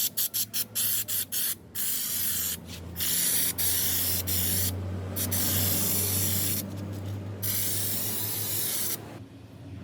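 Spraying hiss, probably paint or primer being sprayed onto the repaired rocker panel: several quick short puffs, then longer steady passes with brief breaks, stopping near the end. A low hum runs underneath.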